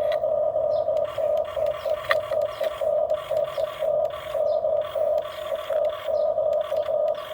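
Electric motors and gearboxes of toy RC construction models whirring: a steady mid-pitched whine that swells and fades several times a second, with short scraping noises on and off.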